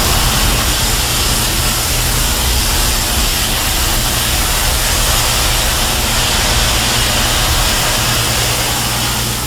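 Kaiju film sound effect from King Ghidorah's sound set: a loud, steady rushing hiss over a low steady hum.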